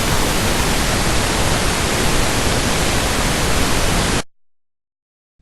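Loud, steady static hiss, a white-noise burst like a dead television channel, that cuts off abruptly about four seconds in and leaves dead silence. It stands for the channel breaking down.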